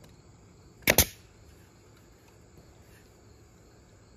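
A DeWalt pneumatic brad nailer fires about a second in, a sharp double crack as it drives brads up through half-inch plywood into a glued pine strip.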